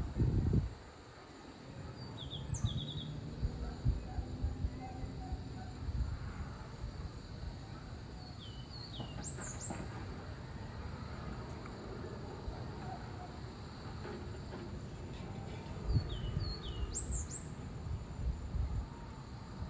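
A bird singing a short phrase of high chirps, a quick run of falling notes and then one high rising note, repeated three times several seconds apart, over a steady low rumble with a few louder low bumps.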